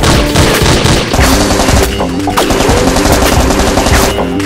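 Rapid machine-gun-style gunfire sound effects, dubbed onto toy blasters, over background music.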